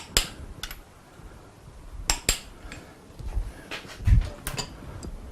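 Sharp metallic clinks and knocks, about six of them, from parts and tools being handled as a partly rebuilt MGB engine is turned over to reach its other side. A heavier low thump comes about four seconds in.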